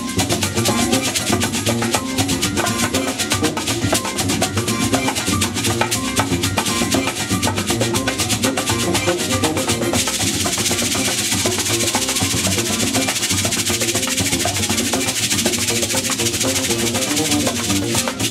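Live band music: rapid hand drumming on bongos over an electric bass line, with a brighter hissing percussion layer coming in about ten seconds in.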